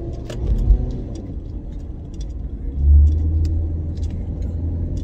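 Car driving, heard inside the cabin: a steady low engine and road rumble that grows louder about three seconds in, with scattered light clicks and rattles.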